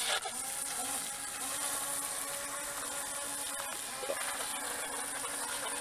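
Two small electric remote-control speedboats running across the water, their motors making a steady high whine over a low hum.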